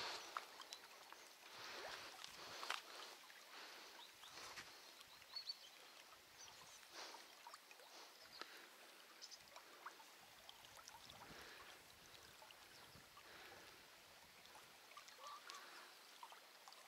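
Near silence, with faint scattered soft rustles and ticks.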